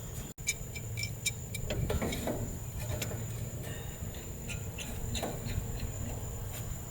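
Light metallic clicks and knocks as a camper's propane tank and its fittings are handled and tugged at, with a quick run of ringing clicks about half a second in. A steady thin high insect drone runs underneath.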